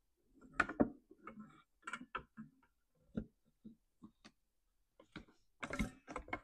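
Irregular clicks, taps and knocks as the old handle is worked loose by hand from a Stihl MS500i chainsaw. The louder clatters come about half a second in and again near the end.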